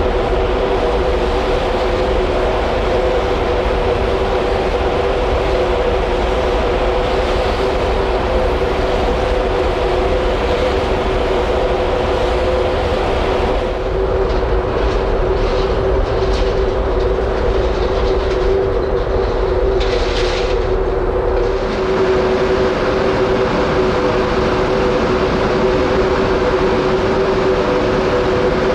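The Mega Smeralda ferry's machinery drones steadily, heard from the open deck: a broad rumble with two held humming tones. It carries some brief hissing about two-thirds of the way through.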